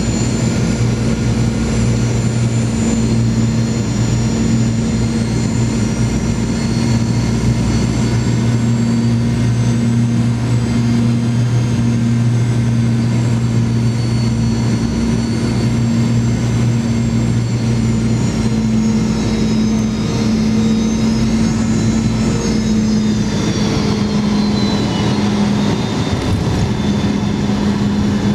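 Cabin noise of a Boeing 717 on final approach: a steady roar of airflow and the tail-mounted Rolls-Royce BR715 turbofans with a low hum. A high engine whine falls in pitch about three-quarters of the way through as the engines are throttled back for landing.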